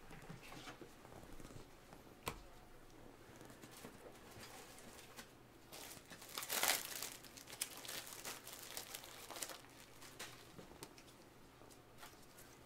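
Trading cards and their plastic packaging being handled at a table: faint rustling and small clicks, with a louder burst of rustling about six and a half seconds in.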